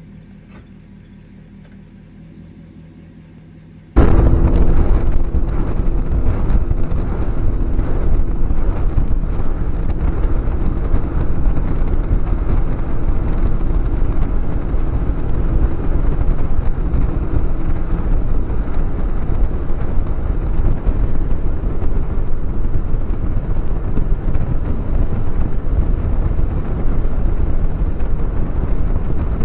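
Jon boat running across open water under outboard power: heavy wind buffeting on the microphone over the engine and hull noise. It starts suddenly after a few quiet seconds with a faint low hum.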